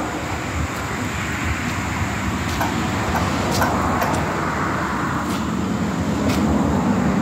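Manual pallet jack loaded with about 1,500 lb of welding rod rolling across a concrete floor: a steady rumble from its wheels, with scattered clicks and rattles as it is pulled and pushed.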